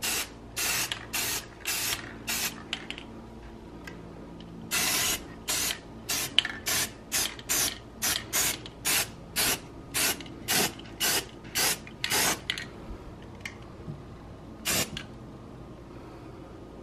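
Aerosol spray paint can sprayed in short hissing bursts, about two a second, with one longer burst after the first few and a pause before a last single burst.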